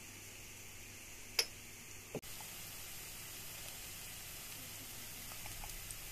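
Grated onion sizzling faintly in hot oil in a frying pan. A sharp click about a second and a half in, and a softer knock just after two seconds.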